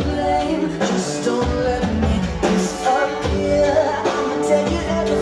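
Pop-rock song with singing and a heavy, pulsing bass beat, played loud as the music for a stage dance routine.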